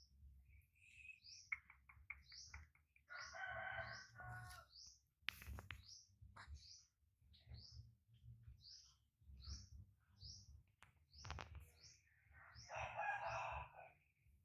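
A small bird chirps over and over, one short rising chirp about every half second. Two longer, fuller calls come about four seconds in and again near the end, with a few sharp clicks between them.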